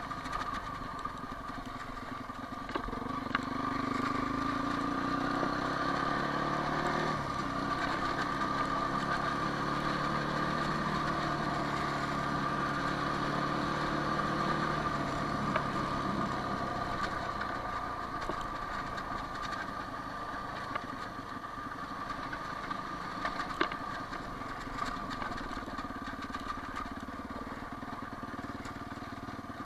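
Quad bike (ATV) engine running under way on a dirt track. It picks up about 3 s in, changes pitch sharply about 7 s in, and eases off after about 15 s, with a steady high whine over it.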